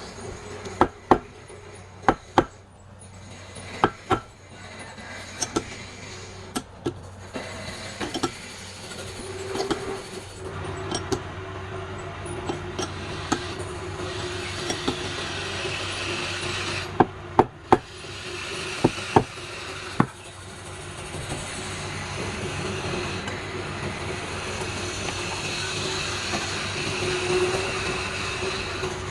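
Wood lathe running with a steady hum while a turning tool cuts a spinning palm-wood blank, with sharp knocks scattered through the first two-thirds and the cutting hiss growing stronger in the last part.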